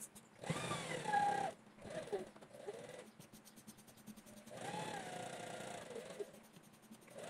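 A dog whining twice in drawn-out cries that rise and then fall in pitch. Between them, a sewing machine stitches briefly with a quick run of faint needle ticks.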